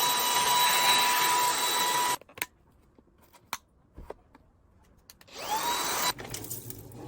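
Cordless stick vacuum cleaner running, a high motor whine over rushing air, cutting off suddenly about two seconds in. A few sharp clicks follow. It then starts up again with a rising whine and runs for under a second before cutting off.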